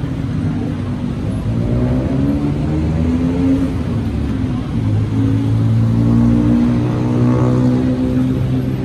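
City street traffic: vehicle engines running close by, their pitch shifting as they pull away and pass.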